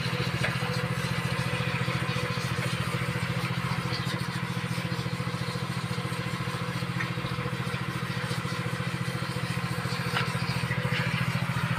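Diesel engine of a Toyota Dyna 130HT light truck idling steadily, with an even, rapid knock.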